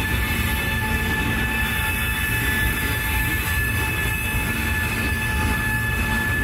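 New York City subway train running on the rails: a steady rumble with a steady high whine over it.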